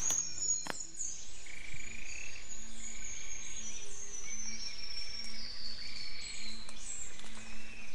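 A chorus of frogs calling in wet forest: many short high calls that fall in pitch, over a longer call repeating about once a second.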